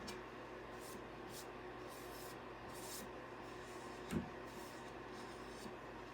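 Faint short wiping strokes of a cloth rubbing off excess oil from an oiled wooden cutting board, with a soft knock about four seconds in, over a low steady hum.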